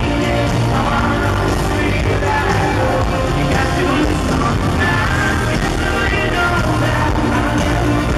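Live rock band in concert: a male lead vocal sung over electric guitar and drums, loud and steady, heard from the audience in an arena.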